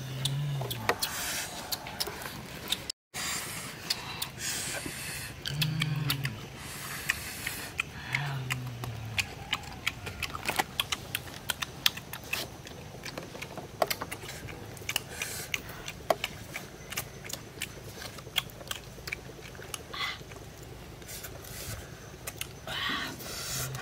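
People eating grilled fish by hand: rapid smacking and chewing clicks throughout, with a few short 'mmm' hums of enjoyment.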